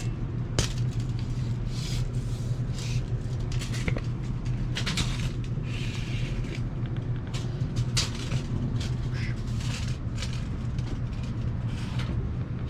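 Steady low machinery hum from building mechanical equipment, with irregular clicks and rustles of handling on top.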